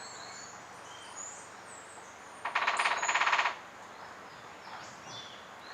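Male rufous-winged woodpecker drumming: one rapid roll of knocks lasting about a second, midway through. Other birds chirp briefly in the background.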